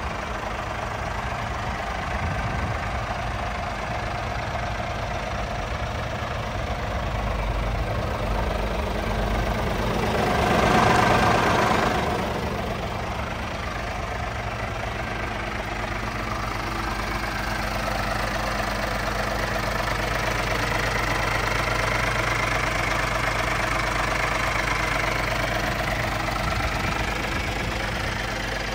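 Scania R450's 13-litre straight-six diesel idling steadily, with a louder swell of rushing noise about ten seconds in.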